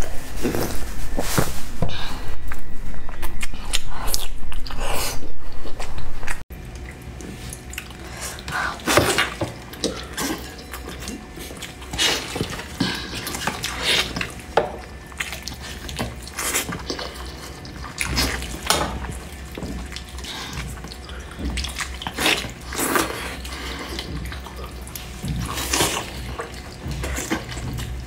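Close-miked wet chewing and mouth sounds of someone eating braised pork, irregular small clicks and squelches. About six seconds in the sound drops suddenly much quieter, and the chewing and biting into a braised pork knuckle carry on.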